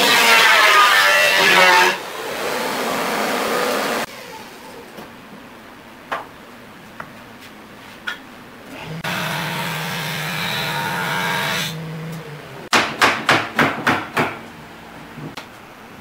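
Wood-shop noise: a loud rushing sound that drops away about four seconds in, leaving light clicks. A motorised tool then runs steadily with a low hum for about three seconds and stops, followed by a quick run of about seven sharp knocks.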